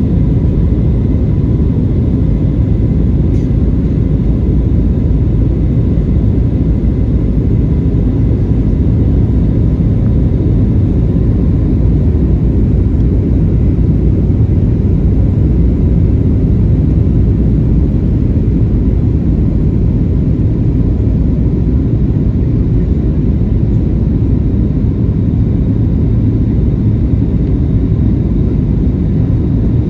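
Boeing 737-900 airliner's engines and airflow heard as a steady, even low rumble with a faint constant whine, unchanging throughout.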